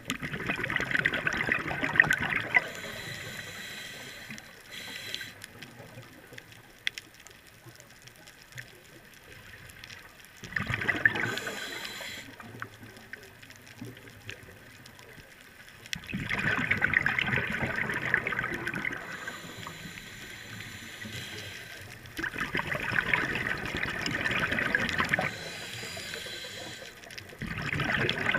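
Scuba diver's exhaled bubbles rushing out of an open-circuit regulator underwater, in five bursts of one to three seconds each, with quieter stretches between breaths.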